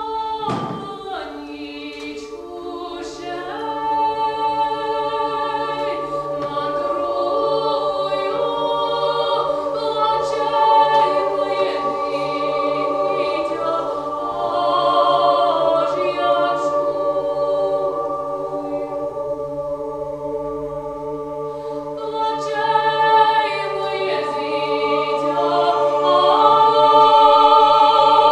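Women's choir singing slow, sustained chords, growing louder toward the end.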